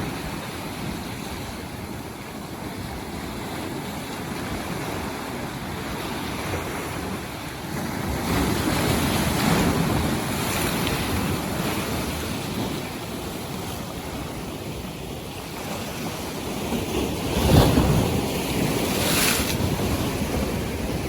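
North Sea waves washing in, with wind buffeting the microphone. The surf swells louder about eight seconds in, and again more strongly about seventeen seconds in.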